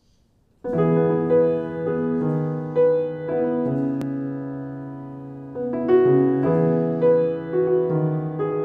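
Piano playing a slow instrumental intro of sustained chords, coming in suddenly about half a second in and changing chord every second or so.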